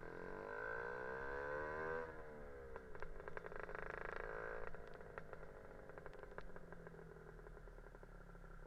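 Lambretta scooter's Casa Performance SSR265 two-stroke kit engine pulling up through the revs over the first two seconds, dropping at a gear change, pulling again, then easing back to a low steady run about five seconds in.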